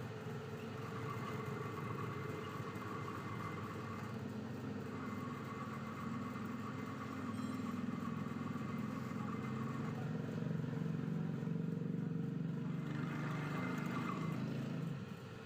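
Lathe running steadily with a low motor hum and a faint whine, growing somewhat louder partway through and stopping abruptly near the end.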